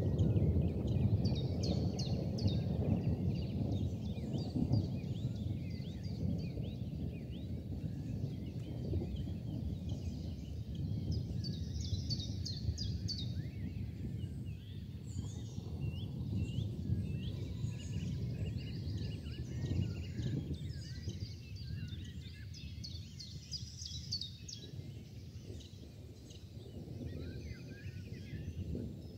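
Small birds chirping and twittering over a low, steady rumble that is loudest at the start and slowly fades.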